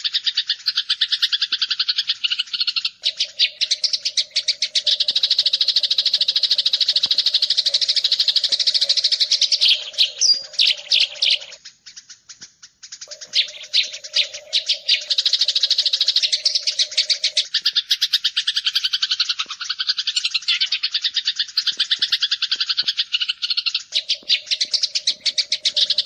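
Eurasian tree sparrows chirping in a fast, dense chatter of short high notes, with a low steady drone beneath for long stretches. The chatter breaks off for about a second midway.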